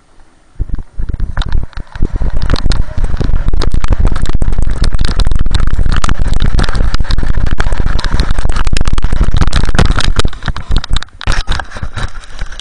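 Snowboard riding downhill on packed snow: a loud rush of wind buffeting the microphone, mixed with the board scraping and crackling over the snow. It builds up in the first couple of seconds and dies down about ten seconds in, as the board comes to a stop.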